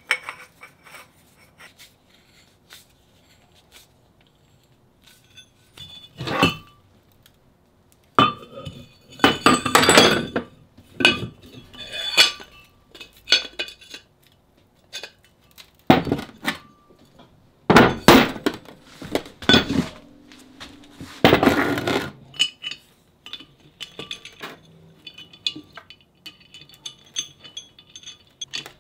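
Heavy steel parts knocking and clanking as a steel pipe is screwed into a pipe mount and an old brake rotor is fitted onto it. Irregular clinks, with a few longer scraping clanks in the middle, give way near the end to lighter, quicker clicks of loose bolts, washers and nuts being handled.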